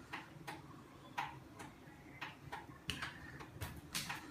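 Scattered light clicks and taps, about a dozen, spaced irregularly.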